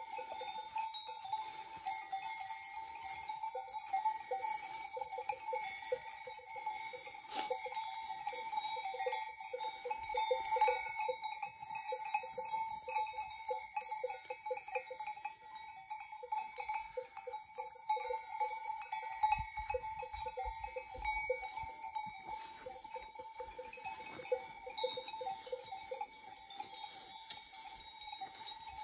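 Many sheep bells clanking and jingling on a grazing flock, a continuous irregular jangle of overlapping metal bell tones.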